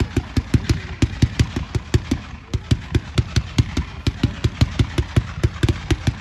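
Brothers 'Rock On' 500 gram consumer firework cake firing a rapid, even volley of shots, about six a second.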